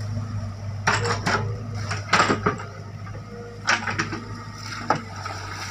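Excavator's diesel engine running steadily while its steel bucket scrapes through soil, with several sharp knocks and clatters about one, two, three and a half and five seconds in.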